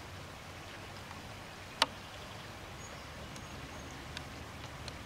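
Quiet outdoor ambience with a steady low wind rumble. A single sharp click comes a little under two seconds in, and a second later there are a few faint short high whistles.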